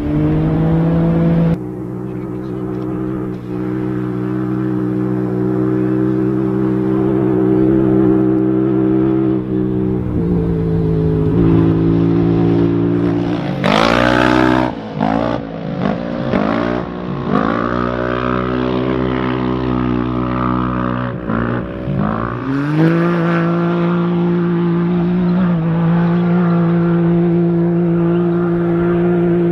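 Side-by-side UTV race cars' engines running at high revs, with several revving surges rising and falling as cars pass by between about 13 and 23 seconds in, over a steady engine drone.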